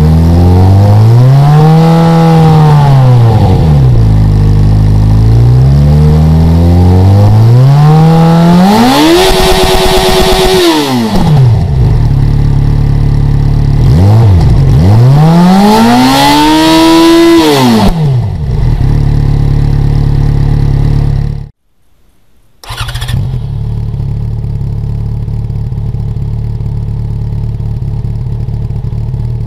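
Yamaha XJ6's inline-four, running through an Ixil SX1 stainless steel exhaust, revved three times while standing, the middle rev held high for about two seconds, then settling to idle. After a short break it idles steadily with the number-two dB killer fitted in the silencer.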